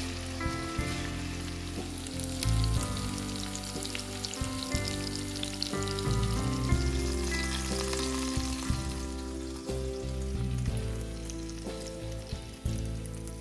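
Food frying in a pan, a crackling sizzle that thins out near the end, over background music.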